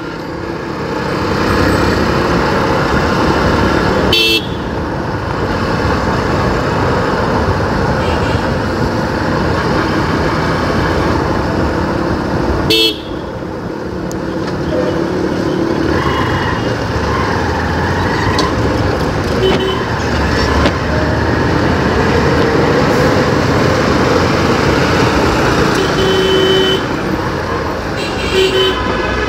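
Motorcycle engine running with road noise while riding in city traffic, with vehicle horns honking briefly near the end. Two sharp knocks cut through early on and in the middle.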